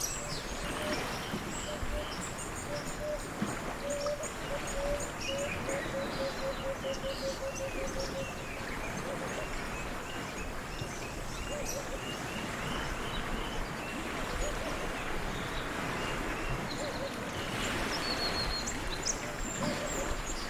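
Outdoor nature ambience: many birds chirping and calling over a steady hiss. A low call of quickly repeated notes, several a second, runs for a few seconds in the first half.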